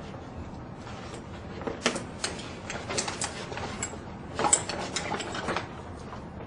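A removable fabric basket being unsnapped and lifted off a rollator frame: a string of irregular snap clicks and handling knocks, the loudest about four and a half seconds in.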